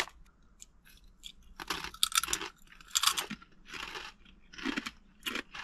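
Takis rolled tortilla chips being chewed, crunching in an irregular string of crisp crackles that start about a second and a half in.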